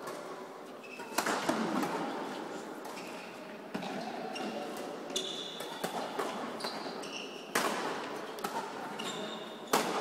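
Badminton rally on an indoor court: sharp racket-on-shuttlecock hits a few seconds apart, with short high squeaks of shoes on the court floor, mostly in the second half.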